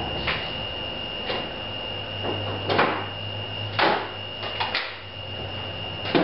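About six scattered knocks and rubs, like things being handled on a workbench, over a steady high-pitched whine and, for a few seconds in the middle, a low hum.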